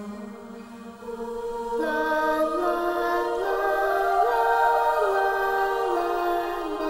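Slow introductory music with sustained choir-like notes: a soft held low note, then about two seconds in several long notes swell in and move slowly up and down in steps.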